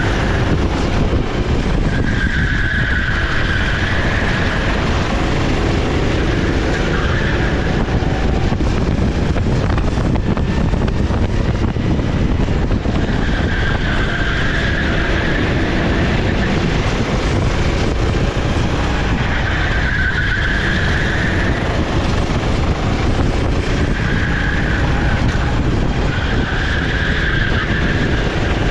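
Racing kart's 390cc single-cylinder four-stroke engine (Sodi SR4 with Honda GX390) under race load, its note rising and falling over and over as it accelerates out of corners and eases off into them, over a constant rushing noise.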